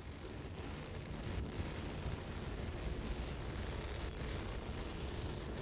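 Starship SN11's three Raptor engines firing during ascent: a steady, even rocket noise, heaviest in the low end, that swells slightly in the first second.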